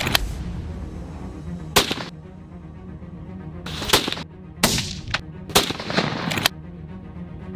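A series of single gunshots, about seven, fired at uneven intervals from a firearm, over background music.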